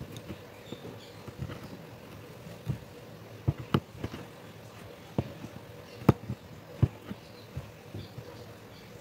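Aari hook needle punching in and out of cloth stretched taut on an embroidery frame: irregular taps and clicks, the sharpest about six seconds in.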